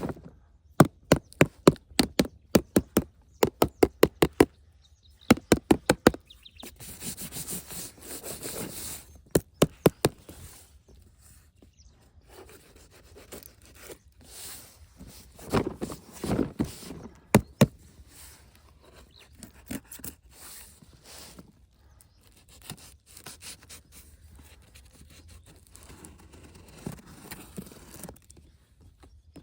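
Hands handling a boxed toy and its packaging: sharp clicks and knocks, many in quick runs, with stretches of rustling between them.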